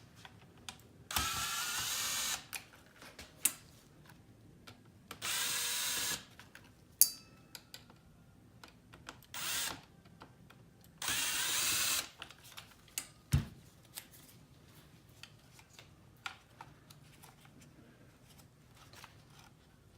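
Small electric screwdriver running in three short bursts of about a second each, backing out the screws that hold a circuit board in a car navigation unit. Small clicks and taps of handling the parts come between the bursts.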